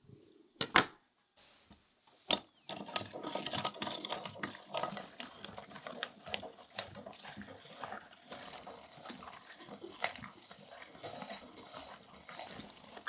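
Metal meat grinder mincing fresh tomatoes and peppers: a dense, irregular wet squelching and crackling as the pulp is forced through the perforated cutting plate. It starts about three seconds in, after a couple of sharp knocks.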